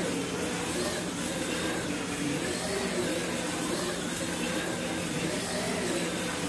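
Tyco HO slot car with a rebuilt 2.8 ohm armature motor running laps on a plastic track: a steady motor whine that rises and falls in pitch as the car speeds up and slows through the turns. The motor is running much smoother now that a pressed-on bushing has been removed from the armature.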